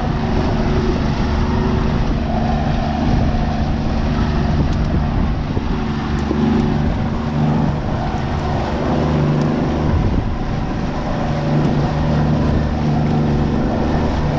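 90 hp Yamaha outboard motor running steadily at trolling speed, a constant low hum with an even rushing noise over it.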